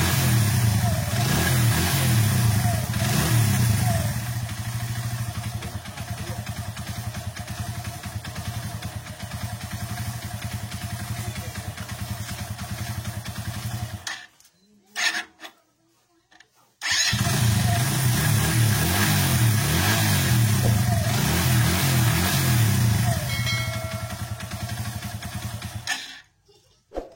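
KSR150 motorcycle engine running after its bendix drive (starter clutch hub) was replaced, louder for the first few seconds and then steadier. It stops about halfway through, comes back about three seconds later, and stops again near the end.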